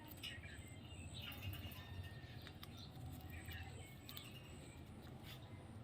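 Faint, short parrot chirps and squeaks scattered through, with a few light clicks between them.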